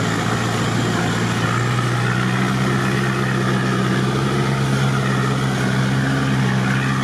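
Off-road 4x4's engine running steadily under load as it drives through muddy floodwater, with water swishing around the wheels; the engine note firms up about two seconds in.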